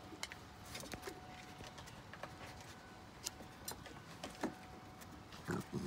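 Scattered light clicks and taps of raccoons moving about close to the phone on a wooden deck, with a brief vocal sound near the end.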